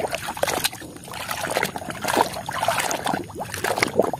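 Muddy, foamy water sloshing and splashing in a basin as a hand swishes and scrubs a toy fire truck under the surface, in uneven surges.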